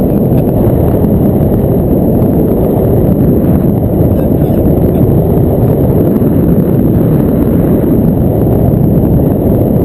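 Airflow buffeting the camera microphone during a paraglider flight: a loud, steady, low rumble of wind noise.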